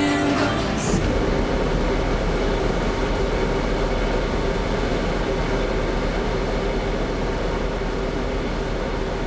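Steady machinery rumble and hiss of a coastal passenger ship, heard on its open deck, with a low hum and a faint steady tone running through it.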